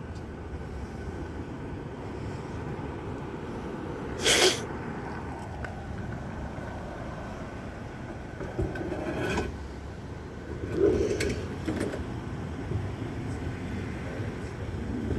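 Steady rumble of idling vehicles and street traffic, with a few short scrapes and knocks: a sharp, loud one about four seconds in, and more around nine and eleven seconds.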